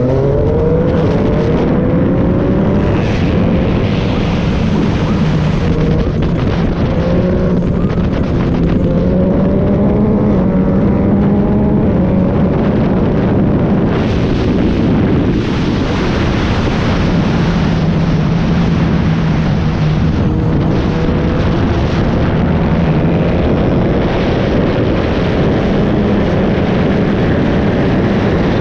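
Yamaha MT-09 three-cylinder motorcycle engine on the move, its note climbing several times as it pulls through the gears, over a steady rush of wind on the microphone.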